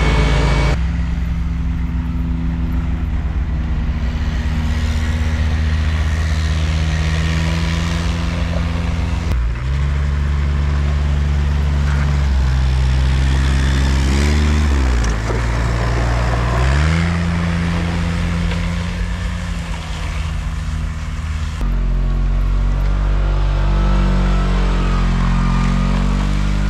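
Kawasaki KRX1000 UTV engine running under load as the machine drives on Camso snow tracks. The engine note holds steady, changes abruptly twice, and about halfway through drops and climbs back up.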